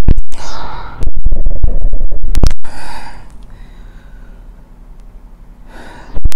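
A man sniffing hard at perfume on his gloved hands held to his face: loud, rough, rapid sniffs and breath close to the microphone, dropping to a quieter breath in the middle and turning loud again just before the end.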